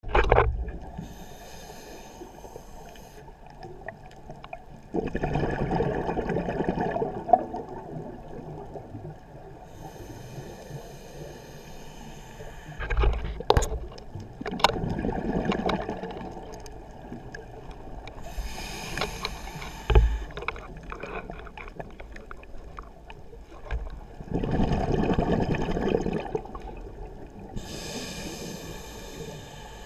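A scuba diver breathing through a regulator underwater: a slow, steady cycle of breathing noise and exhaled bubbles gurgling, repeating about every nine seconds. A few sharp clicks stand out, the loudest about thirteen and twenty seconds in.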